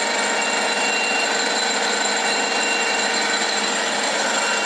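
Lathe running at high spindle speed: a steady mechanical whir from the headstock gearing with several steady high whining tones over it, loud enough to trip the panel's overload warning.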